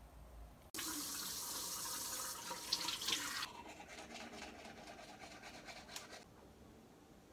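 Tap water running into a washbasin, which stops abruptly about three and a half seconds in. Teeth are brushed with a toothbrush in quick repeated scrubbing strokes, which go on for a few more seconds after the water stops.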